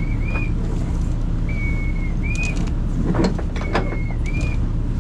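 A ship's engine keeps up a steady low hum. Over it, about every two seconds, comes a whistled call: a held note, then a short higher one. A few knocks and clicks fall just past the middle.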